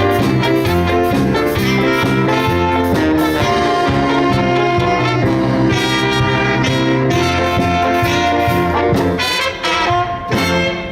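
Big band playing, with trumpets, trombones and saxophones over bass and drums; the sound breaks up into short closing chords near the end and stops.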